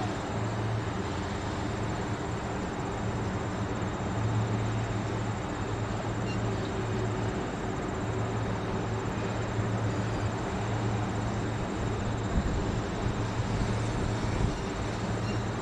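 A machine or engine running steadily with a constant low hum and a broad even noise, with a few faint knocks near the end.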